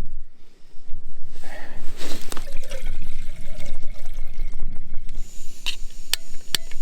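Liquid being poured during a trailside brew, with a few sharp clinks near the end and a steady low rumble underneath.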